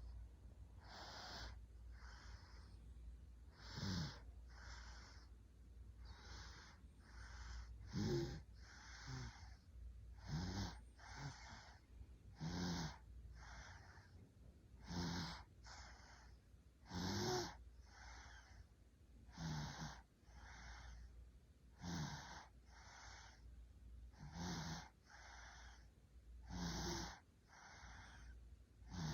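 Snoring in a steady rhythm: each cycle is a loud rattling snore followed by a softer breath about a second later, repeating roughly every two and a half seconds.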